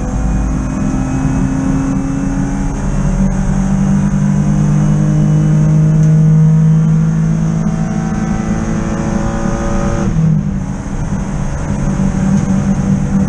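In-car sound of a BMW E36 323i race car's straight-six engine pulling hard under full throttle, its revs climbing steadily. About ten seconds in the revs drop sharply, then it pulls again.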